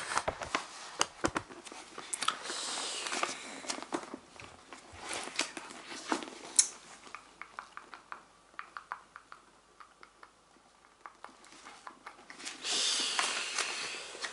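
Paper being handled close up: the thin pages of a thick paper book rustling, crinkling and ticking as they are turned and flipped. A louder stretch of page riffling comes near the end.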